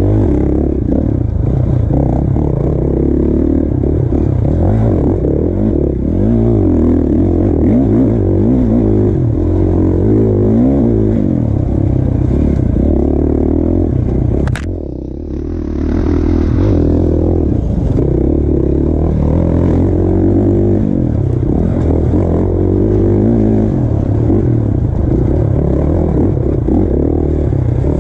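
Dirt bike engine revving up and down with the throttle as it is ridden hard. About halfway through there is a sharp click, and the engine note drops briefly as the throttle is shut, then it picks up again.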